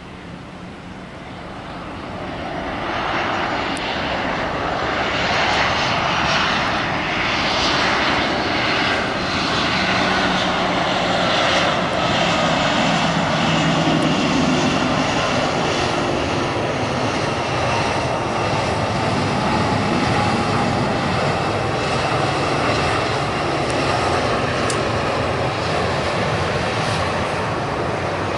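The twin jet engines of an ANA Boeing 737 airliner during its landing roll-out. The rush swells loud over the first few seconds and stays loud, with a whine that slowly falls in pitch as the engines spool down.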